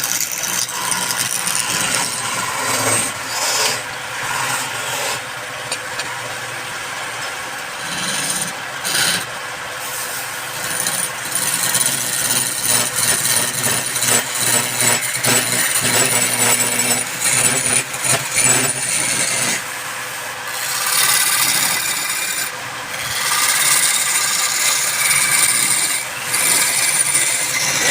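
Wood being cut and abraded by a power tool: a continuous rasping noise that swells and eases, louder through the second half.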